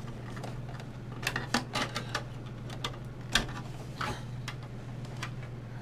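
Scattered clicks and light knocks of hardware being handled inside a desktop PC case as the graphics card is taken out, over a steady low hum.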